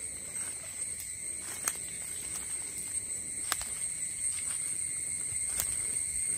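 Insects droning steadily on two high pitches, with scattered sharp crackles from a charcoal and coconut-shell fire catching.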